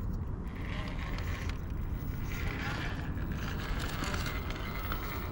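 Electric RC rock crawler (Vanquish VS4-10) whirring through its drivetrain as its tyres scrape and tick over granite while it climbs, louder in the middle. Wind rumbles on the microphone underneath.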